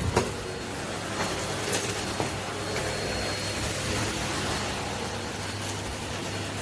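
Henry cylinder vacuum cleaner running steadily, its motor giving a low hum under a rushing of air, with a few sharp clicks along the way.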